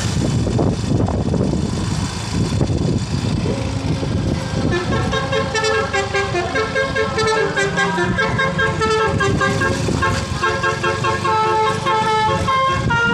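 Bus engine and road noise, then, about four seconds in, an Indonesian 'telolet' musical bus horn (Basuri type) starts up, its trumpets playing a fast tune of changing notes over the engine.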